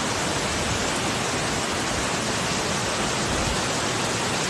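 Steady, unbroken hiss of rushing water.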